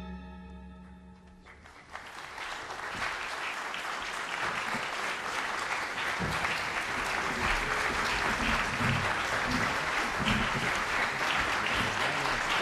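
A string orchestra's last chord dies away, and about two seconds in an audience breaks into applause, which builds quickly and then goes on steadily.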